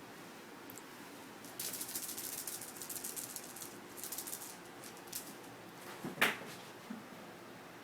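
A kitten at play with a small toy: light, rapid rattling in spurts for about three seconds, a few clicks, then one sharp knock.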